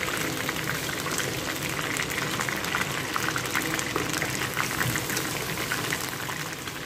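Chicken wings frying in hot oil: a steady sizzle with a dense run of small pops and crackles.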